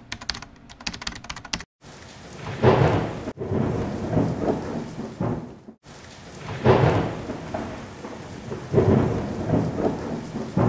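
Thunderstorm: steady rain, with thunder cracking loudly three times and rolling off into rumble each time. Rapid pattering of raindrops near the start.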